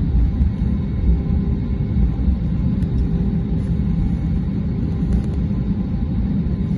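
Airbus A321-200 cabin noise while the aircraft rolls on the ground: a steady low rumble from the jet engines and the airframe, with faint steady engine tones above it.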